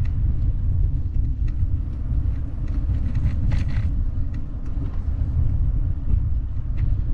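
Steady low rumble of road and wind noise on a camera riding along a street, with scattered light ticks and a brief hiss about three and a half seconds in.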